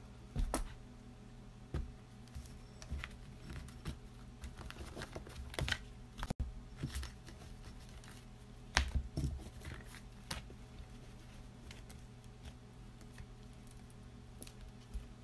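A deck of tarot cards being split and handled: scattered soft clicks and rustles as the cards are cut, tapped and slid, with a steady low hum underneath.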